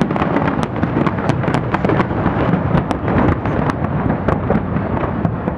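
Fireworks display: a dense run of sharp cracks over a continuous rolling rumble of booms.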